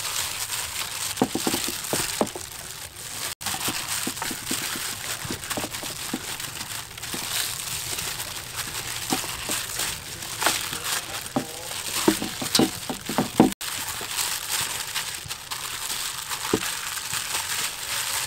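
A thin plastic disposable glove crinkling and rustling as a hand rubs chopped aromatics into a raw fish in a stainless steel bowl, with many small wet clicks and squelches. The sound drops out for an instant twice, about three seconds in and again about thirteen seconds in.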